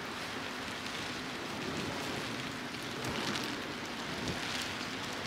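Steady rain falling, an even hiss that swells slightly about three seconds in.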